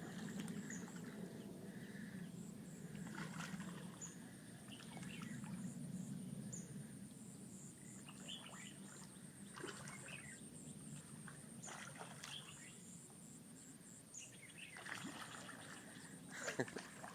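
Large fish such as pacu splashing and slurping at the water's surface as they take floating bread, in scattered sudden strokes. A steady low hum and faint bird chirps run underneath.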